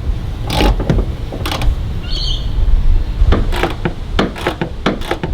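Clunks and knocks of an Isuzu D-Max's factory plastic airbox being worked loose and lifted out of the engine bay, with a brief high squeak about two seconds in.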